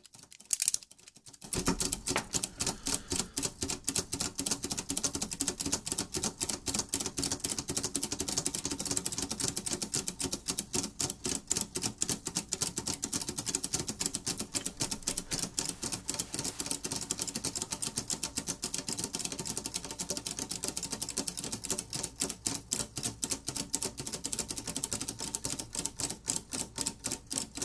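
Three or four 100% 3D-printed plastic tourbillon watch escapements ticking at once, a rapid, dense, overlapping clicking that keeps an even pace, after a couple of louder knocks about a second in.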